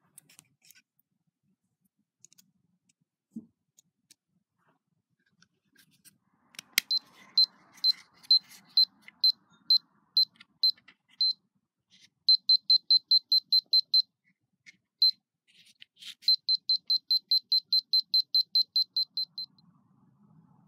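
Sanwa KDP10 live-wire voltage detector beeping: a short, high-pitched beep about three times a second, then twice in faster runs of about five a second. Each run starts with a sharp click.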